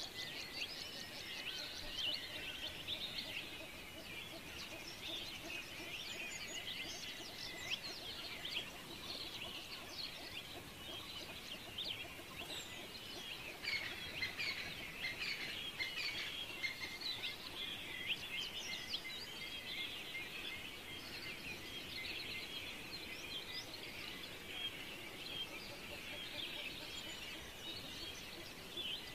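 Many small birds chirping, a dense chatter of short, high overlapping calls that goes on without pause.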